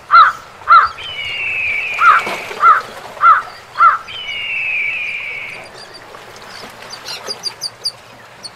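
A series of loud animal calls, evenly spaced at under two a second, with two long falling whistle-like tones between the groups. A few faint clicks follow near the end.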